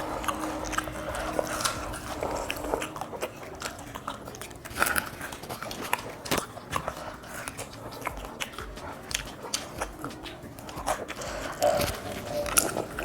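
Close-up biting and chewing of a fried chicken wing, with many short crunchy clicks and a few louder bites.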